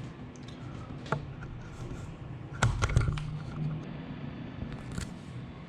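Scattered clicks and taps on a laptop, like keys or the touchpad being pressed, with a quick cluster of louder taps about two and a half seconds in. A low steady hum runs underneath.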